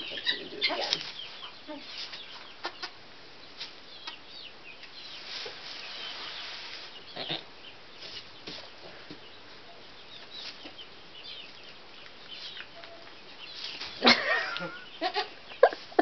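Straw bedding rustling, with scattered small knocks, as a newborn goat kid shuffles and noses at its mother's udder. A short, louder animal call comes about fourteen seconds in, followed by a few sharp clicks.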